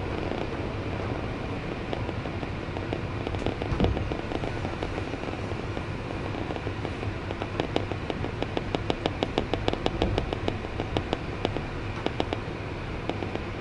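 Passenger train running along the track with a steady low rumble. From about seven seconds in, a quick run of sharp clicks from the wheels on the rails comes at about five a second for several seconds.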